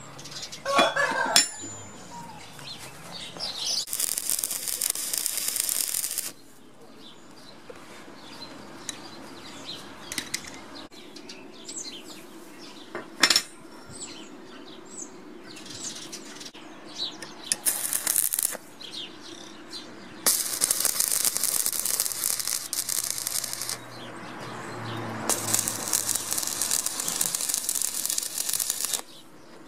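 Stick (arc) welding crackling in several separate bursts, the longest two in the second half, as a ball bearing is welded to a steel mounting plate. Two sharp metal clinks come in the quieter stretches, one about a second in and one midway.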